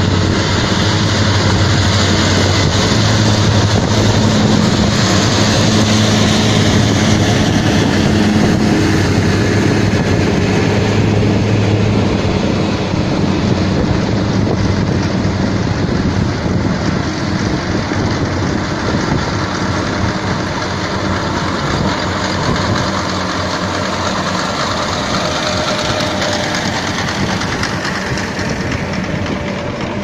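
Farm tractor's diesel engine running steadily under load as it pulls a ROC RT 1000 windrow merger through cut wheat, together with the machinery's steady noise. The engine hum is strongest for about the first twelve seconds, then eases, and the whole sound grows gradually quieter.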